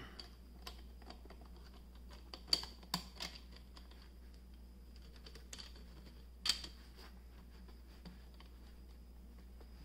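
Scattered light clicks and taps of 3D-printed plastic rings knocking against each other as they are handled and pressed together, the sharpest about two and a half and six and a half seconds in.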